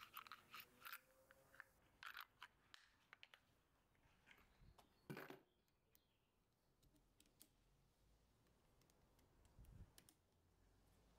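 Faint metal clicks and ticks of hex driver bits being handled and pulled from a plastic bit holder, with one sharper click a little after five seconds as a bit is snapped into an impact driver's quick-release chuck.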